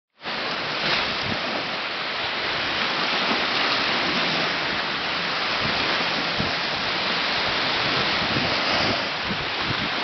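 Small ocean waves breaking and washing up over a sandy beach, a steady, even hiss of surf.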